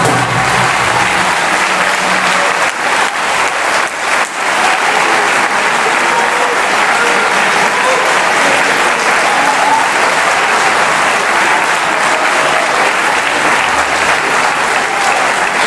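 Audience applauding steadily, with the choir's final sung note dying away in the first second.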